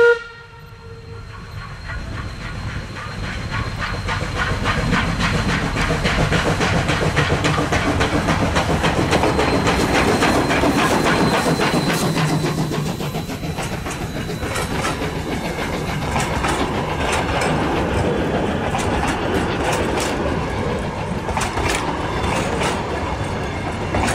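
Steam train passing at close range: C17 974, a 4-8-0 steam locomotive, and its wooden carriages. The tail of a steam whistle cuts off right at the start; the train's noise then builds over the first few seconds and holds as the carriages roll by, their wheels clicking steadily over the rail joints.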